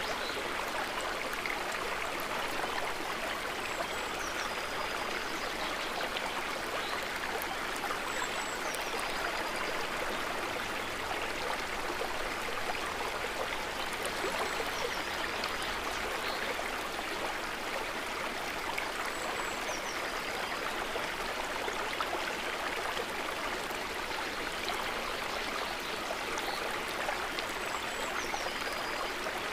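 Water trickling gently, a steady even babble. Faint short high chirps come in every few seconds.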